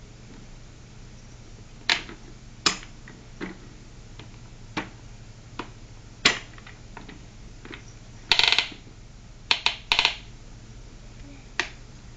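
Plastic clacks and rattles from a baby walker's toy tray as the baby knocks and shakes its toys: about ten sharp, irregularly spaced clacks, with a short rattling run about eight seconds in.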